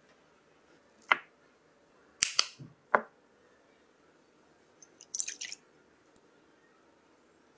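A few sharp knocks and clinks of glass kitchenware: one about a second in, then a quick group around two to three seconds. About five seconds in there is a short splash as milk and cream are poured into a glass mixing bowl.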